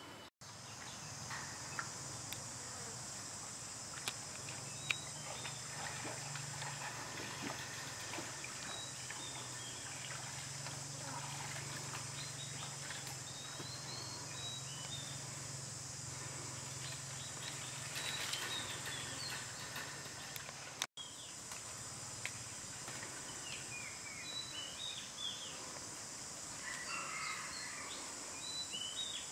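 Outdoor ambience: a steady high insect drone with scattered small bird chirps, over a low steady hum. A few sharp ticks come about four and five seconds in.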